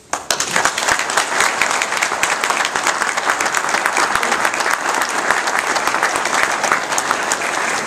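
Audience applauding: many people clapping, starting suddenly and going on steadily.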